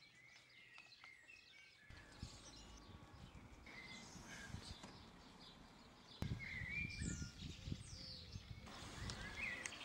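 Quiet outdoor background of small birds chirping and twittering, over a faint low rumble with a few soft knocks. The level steps up about six seconds in.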